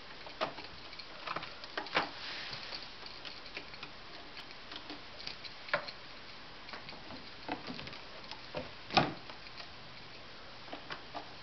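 Irregular light taps and knocks of Maine Coon kittens clambering on a carpeted cat tree and batting at a wand toy, over a steady background hiss. A sharper knock comes about two seconds in, and the loudest about nine seconds in.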